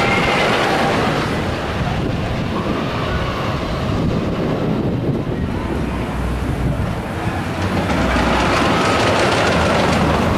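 Wooden roller coaster train, the Giant Dipper's Morgan train, rumbling and clattering along its wooden track. It eases off in the middle and grows louder again over the last couple of seconds.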